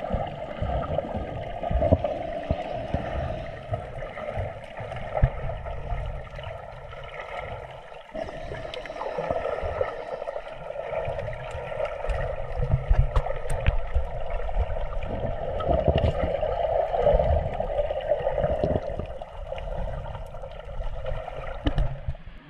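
Muffled gurgling and sloshing of seawater around a camera while snorkelling, with irregular low thumps from the water's movement.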